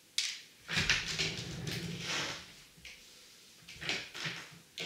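Rustling and light knocks from a person shifting in a chair and reaching down to the floor for a dropped LEGO piece, in two spells with a short quiet gap between.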